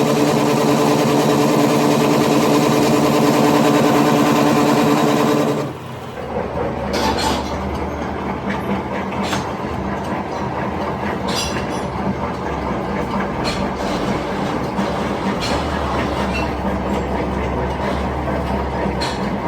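Shop machinery working on a drive shaft. A motor-driven machine runs steadily for about six seconds, then the sound changes abruptly to a rougher running noise with a low hum and scattered sharp clicks.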